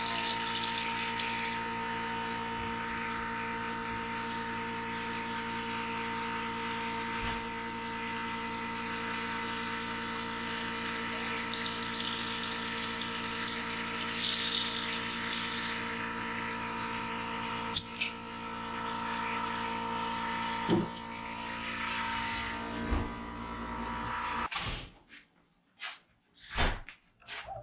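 Compressed air hissing into a mower engine's oil fill tube while the old oil gushes out of the drain hose, a steady sound with a hum under it. It cuts off abruptly near the end, followed by a few short knocks.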